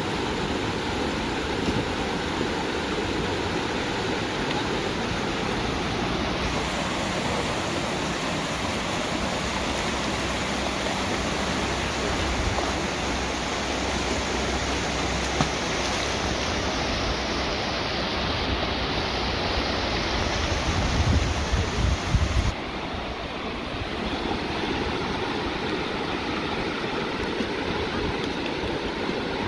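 Shallow rocky river rushing and babbling over stones in riffles, a steady rush of water. About two-thirds through comes a few seconds of low rumbling, the loudest part, after which the sound shifts abruptly.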